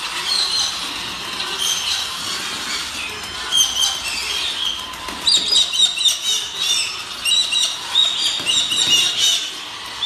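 Young galahs (rose-breasted cockatoos) calling together with many short, high-pitched calls, sparse at first and coming thick and fast from about halfway through.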